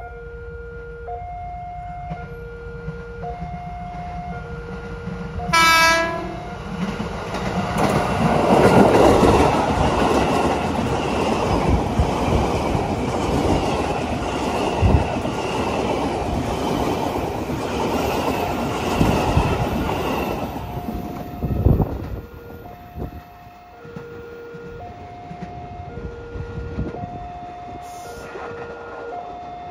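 Railway level-crossing warning siren alternating between a low and a higher tone, each about a second long. About six seconds in, a train gives a short horn blast, then passes for about fifteen seconds, its wheels clattering over the rail joints and drowning the siren, which is heard plainly again once the train has gone.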